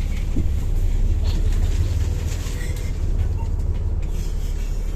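Engine of a Scania CN280UB Citywide low-floor city bus running with a steady low rumble, with light rattles and clicks over it.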